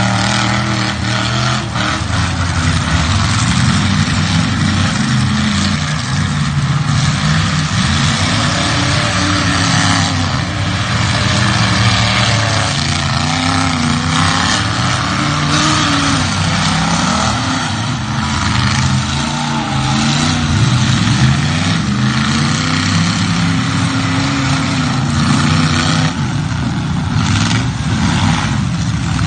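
Demolition derby cars' engines revving up and down, loud and continuous, with several engines at once rising and falling in pitch.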